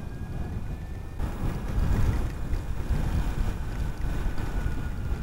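Wind buffeting the microphone and water splashing and spraying as a Zero SR electric motorcycle rides through a flooded street in rain. The rush gets louder about a second in. A faint, thin electric-motor whine sits above it.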